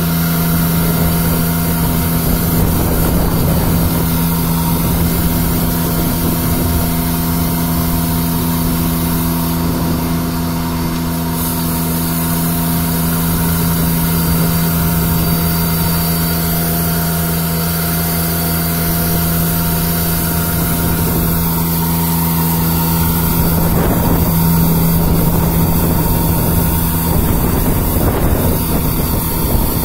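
Ranger MN-F2000 diesel vacuum street sweeper working, its diesel engine and suction system running at a steady speed with a constant hum. It sweeps along the curb.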